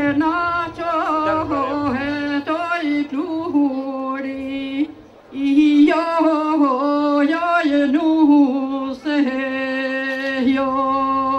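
Albanian folk wedding song sung in a single melodic line, with long held notes and ornamented turns. There is a short break between phrases about five seconds in and a brief dip near nine seconds.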